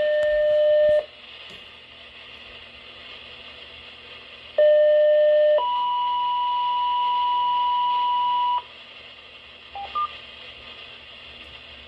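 Electronic alert tones over steady radio hiss on a weather radio broadcast: a held tone cuts off about a second in; a few seconds later comes a lower tone for about a second, then a higher tone held for about three seconds, and two short beeps follow near the end.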